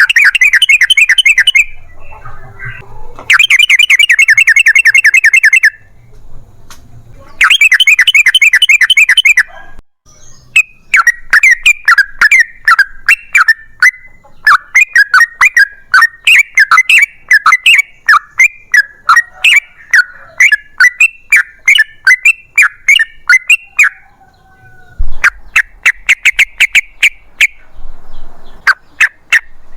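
Yellow-vented bulbul (trucukan) song, loud: three fast chattering bursts of about two seconds each, then a long run of quick, repeated bubbling notes, then another chattering burst near the end.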